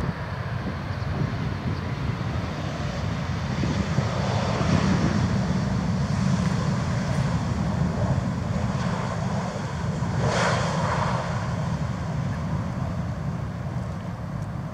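Airbus A320 jet engines rumbling steadily on the landing rollout, with the thrust reversers deployed. A short hissing swell rises about ten seconds in.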